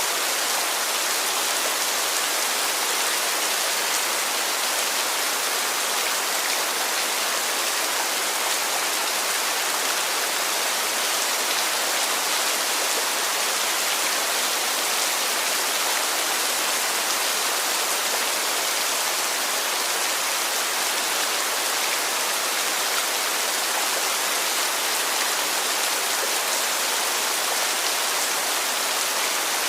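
Heavy rain falling steadily: a dense, even hiss of countless drops with no distinct single drips or pauses.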